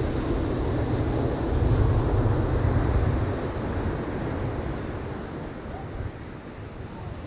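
Ocean surf breaking on a sandy beach: a wave crashes and rolls in, loudest for the first three seconds or so, then the wash slowly fades. Wind buffets the microphone with a low rumble.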